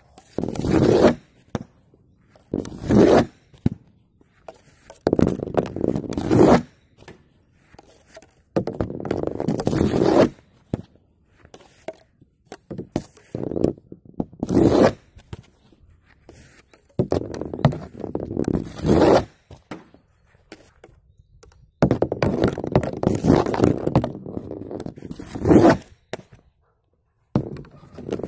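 Floorball shots: a plastic stick blade drags and flicks a floorball across a wooden board, over and over. Each shot is a loud scrape lasting about a second, some ending with a thunk, and they come every two to three seconds.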